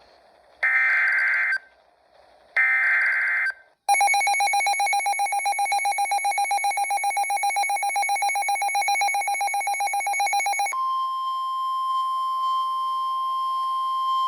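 NOAA Weather Radio severe thunderstorm warning alert. It opens with two one-second screeching bursts of SAME digital header data. A rapidly pulsing electronic alarm then runs for about seven seconds, and it gives way to the steady 1050 Hz warning alarm tone.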